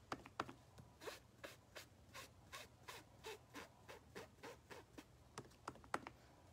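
Faint, quick dabbing of a small ink sponge on paper through a stencil and on an ink pad, about three soft taps a second.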